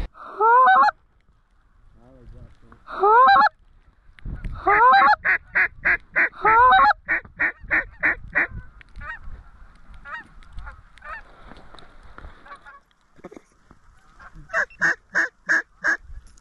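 Geese honking: two drawn-out honks that rise in pitch, then a fast run of short honks, fainter calling, and another quick run of honks near the end.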